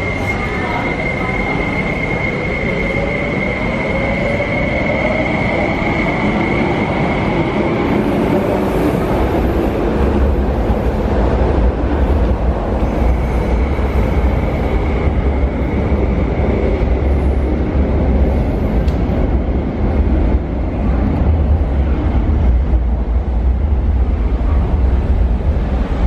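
MTR SP1900 electric multiple unit pulling out of a station and accelerating away, with a steady high electric whine from its traction equipment over the rumbling of its wheels on the rails. The whine fades out about halfway through, and a deeper rumble builds from about ten seconds in as the train runs off into the tunnel.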